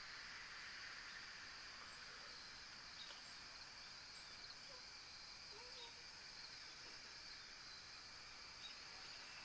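Near silence: a faint steady background hiss with a few faint, brief chirps scattered through it.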